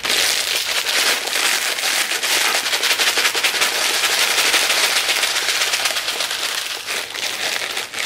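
Bag of bulgogi-flavoured dry ramen-noodle snack worked by hand: the broken dry noodles and the plastic wrapper crackle and crinkle densely and without pause.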